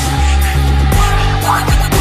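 Loud music with heavy bass and a steady drum beat.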